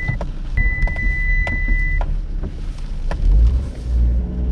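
Mitsubishi Lancer X heard from inside the car as it is manoeuvred, its engine rumbling low and growing louder about three seconds in. A steady high-pitched beep sounds twice, broken by a short gap, then stops about two seconds in, with scattered light ticks throughout.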